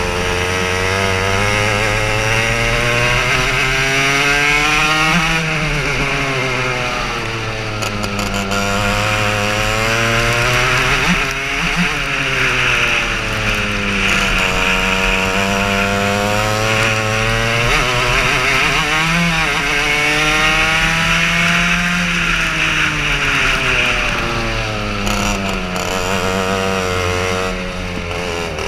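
Racing kart's engine heard on board at close range, revving up along the straights and dropping off into the corners, so its pitch climbs and falls again and again.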